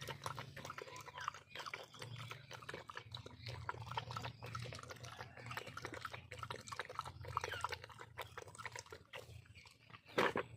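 Dogs chewing watermelon: wet, crunching bites and smacking in quick, irregular clicks, with one short louder burst near the end.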